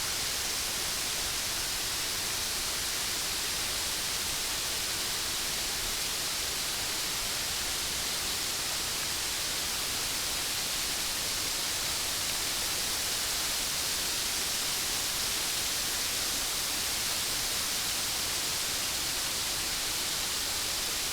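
Rushing water of a large waterfall, close by and so loud: a steady, even hiss that does not change.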